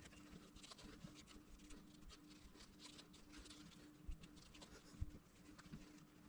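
Faint, irregular scratching and light ticks of hand-cleaning a motorcycle's rear suspension link (dogbone) parts, with a slightly louder tap about five seconds in.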